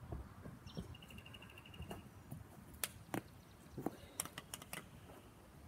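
Quiet backyard sounds: a short, high, rapidly pulsing chirp about a second in, then a scattered run of sharp clicks and light taps.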